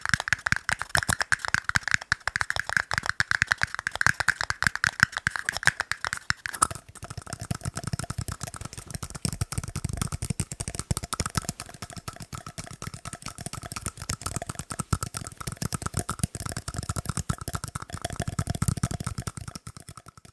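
Fast, continuous tapping on tiny cups, each tap ringing with the cup's tone; about seven seconds in the tapping moves to a cup with a lower ring.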